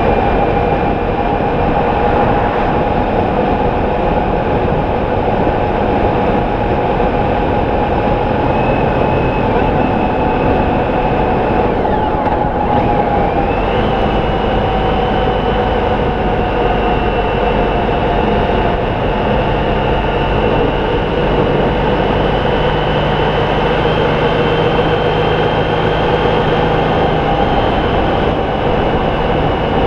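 Honda ST1300 motorcycle cruising at steady speed: a loud, even wind rush over the on-bike microphone with the steady drone of its V4 engine underneath.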